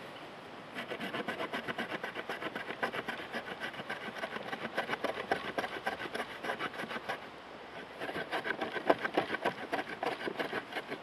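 Saw teeth on the spine of an Aitor Oso Blanco knife cutting into a wooden branch, in quick, even back-and-forth rasping strokes. The strokes start just under a second in, pause briefly about two-thirds of the way through, then carry on.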